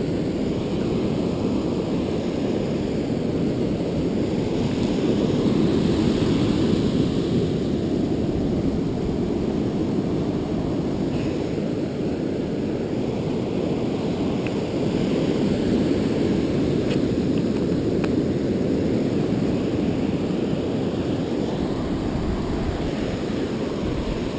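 Strong wind buffeting the camera's microphone as a steady low rumble, with ocean surf breaking behind it. The noise swells a couple of times.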